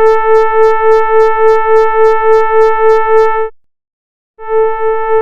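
Air horn prank sound effect: a long, loud single-pitched blast that wavers about four times a second, lasting about three and a half seconds, then a second blast starts after a break of about a second.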